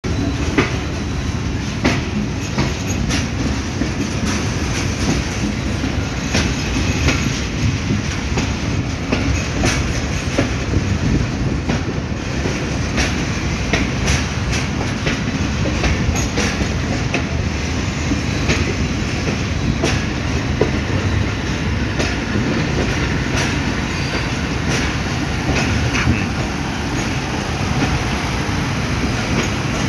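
Passenger train running along the rails, heard from inside a coach: a steady rumble of the wheels with irregular sharp clicks and clacks as they pass over rail joints.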